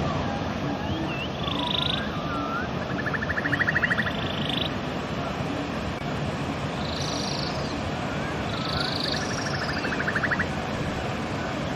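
Steady rush of a river with a songbird singing the same phrase twice: a few chirps and swoops, then a rapid rattling trill.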